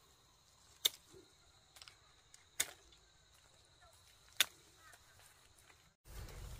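Hand pruning shears snipping through orange stems: three sharp snips, roughly a second and three quarters apart, with a few fainter clicks between the first two.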